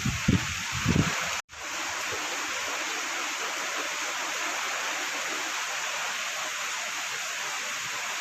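Steady hiss of heavy, continuous rain. A few low muffled bumps sound in the first second, and the sound cuts out for an instant about a second and a half in before the rain noise resumes.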